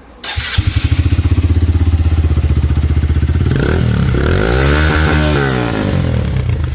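Honda CG Titan 150's single-cylinder four-stroke engine, breathing through a loud aftermarket sport exhaust, starts up a moment in and idles with a fast, even pulse. About halfway through it is revved once, rising and falling, then drops back to idle.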